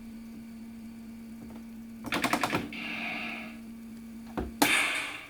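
Sound effects for an N gauge Chuo Line E233 commuter train: a steady electric hum, a rapid rattle of clicks about two seconds in followed by a short hiss, then a thump and a louder burst of hiss near the end as the hum stops.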